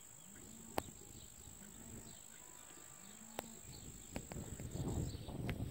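Insects buzzing in a steady high drone, with a few sharp clicks and a louder low rushing noise near the end.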